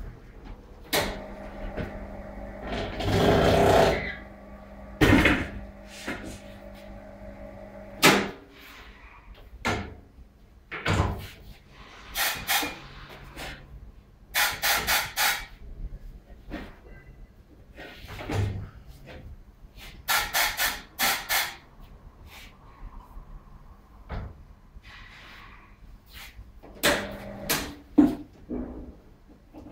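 Tyre-changing machine mounting a tyre on an alloy wheel: the turntable motor hums in spells while the tyre works over the rim, with quick runs of sharp hissing bursts and metal clunks and knocks from the machine's arm and head.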